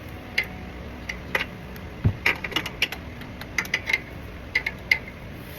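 Irregular metallic clicking and clinking of a ratchet wrench being worked on a car's oil drain plug, with a dull knock about two seconds in; the plug is stuck very tight.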